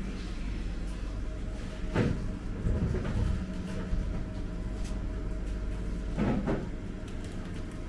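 Glass door of a supermarket refrigerated display case being opened and handled: a clunk about two seconds in with a short rattle after it, and a quick double knock a little after six seconds, over a steady hum.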